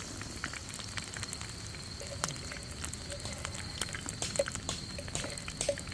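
Battered shrimp tempura frying in hot oil: a steady sizzle with irregular small pops and crackles.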